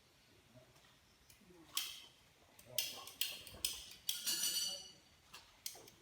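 A run of short, sharp crackling scrapes starting about two seconds in, with a longer one near the middle: white PTFE seal tape being pulled off its roll and wound tightly onto the threads of plumbing fittings.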